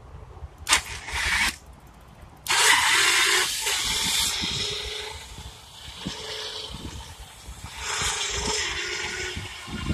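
12-volt winch motor driving a homemade electric bicycle: two short bursts, then it starts abruptly about two and a half seconds in and keeps running as the bike pulls away, with a whine that comes and goes.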